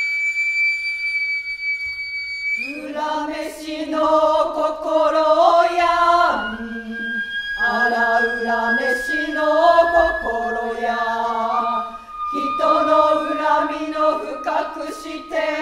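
Noh-style chanting in a low, wavering unison, opened by a high held flute note about two and a half seconds long. Another long flute note is held over the chant in the middle, and a drum is struck now and then.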